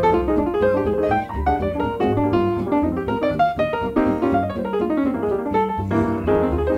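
Background piano music: quick runs of notes over a low bass line.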